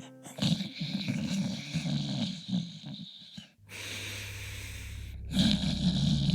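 A person snoring: two long snores, the second starting about two-thirds of the way in. A low steady hum comes in about halfway.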